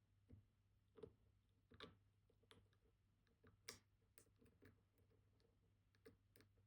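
Faint, irregular small clicks and ticks of a steel hook pick working the pins of a Vachette Radial dimple lock held under tension, about eight in a few seconds.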